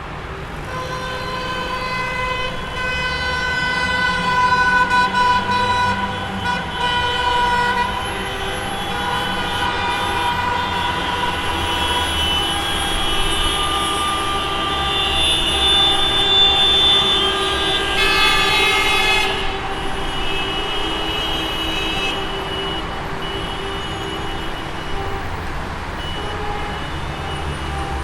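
Traffic jam: many car horns honking at once, overlapping and held over the low rumble of idling engines.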